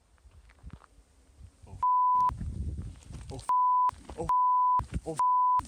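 Censor bleep: a steady, single-pitched beep sounds four times, each about half a second, covering a person's shouted swearing. Short bits of shouting come between the bleeps.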